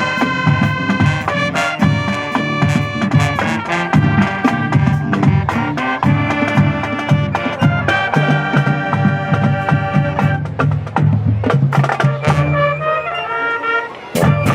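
Marching band playing full out: brass melody with woodwinds over a drumline beat. Near the end it drops back briefly, then comes in with a loud accent.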